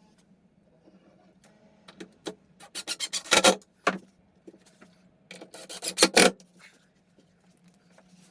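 Two short bouts of rubbing and scraping on plywood, each lasting about a second, with a few single knocks between them, over a low steady hum.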